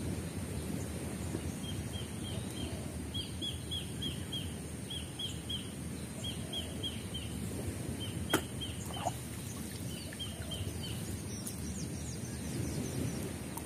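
A bird calling in quick runs of three or four short, high chirps, repeated for several seconds, over a steady low rumble. A single sharp click sounds about eight seconds in.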